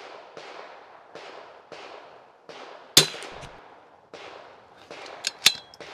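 A single shot from a Rim-X .22 LR bolt-action rifle about three seconds in, sharp with a short ring-off. About two seconds later come two sharp metallic clicks as the bolt is worked to chamber the next round, and fainter pops recur throughout.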